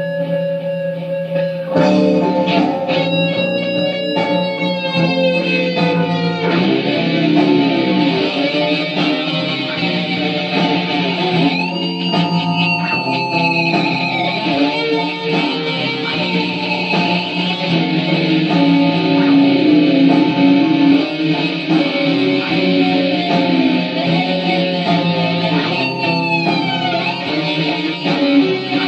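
Explorer-style electric guitar played through an amplifier: a melodic lead of sustained notes with string bends and vibrato, turning fuller about two seconds in.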